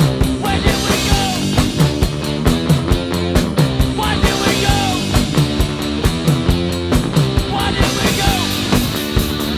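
Rock music with a driving beat, guitars and drums, laid over the video as its soundtrack.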